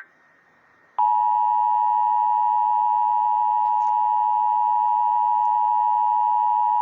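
Emergency Alert System two-tone attention signal: a loud, steady dual-tone alarm that starts abruptly about a second in after a brief silence and holds unbroken. It marks the start of a severe thunderstorm warning alert.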